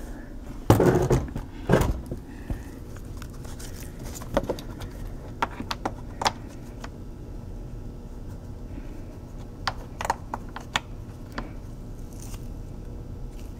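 Handling noise at a laptop: a few sharp knocks about a second in, then scattered light clicks and taps over a steady low background hum.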